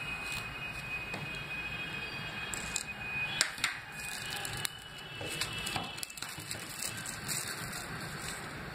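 A box cutter blade scraping along the seal of a small cardboard box, then clear plastic wrap crackling and crinkling as it is peeled off and handled, with the loudest snaps about three and a half seconds in.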